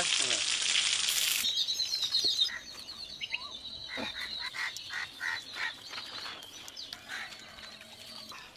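Birds chirping and calling, with a quick series of short calls near the middle. A loud, even rushing noise fills the first second and a half.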